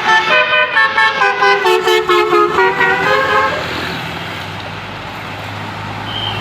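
Basuri telolet multi-tone horn playing a quick melody of trumpet-like notes, changing note several times a second, for about three and a half seconds. Then steady vehicle noise with a low hum.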